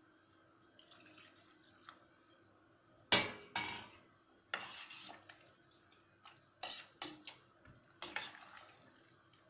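Water poured into a stainless steel pot of peas in tomato sauce, and a metal ladle stirring the stew, knocking against the pot several times, the loudest knock about three seconds in.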